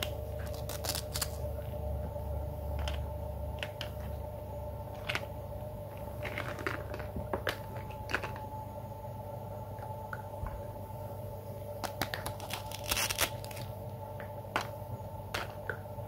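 Toy plastic fruit and vegetable pieces being cut apart with a toy plastic knife and set down: scattered clicks and taps of hard plastic, with short tearing noises as the velcro-joined halves pull apart, over a steady background hum.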